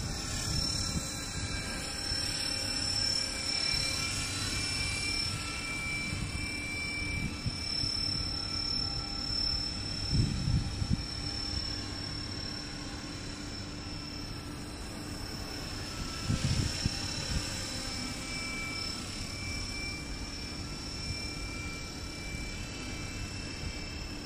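JCZK 300C radio-controlled model helicopter in flight: a steady high-pitched motor and rotor whine that drifts slowly in pitch as the helicopter moves about. Short low rumbles of wind on the microphone come about ten and sixteen seconds in.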